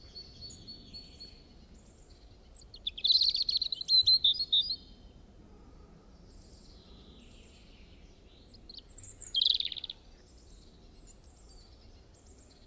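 Birds chirping and calling: a held high note at the start, a quick run of rapid chirps from about three to five seconds in, and another short burst near ten seconds, with faint scattered calls between.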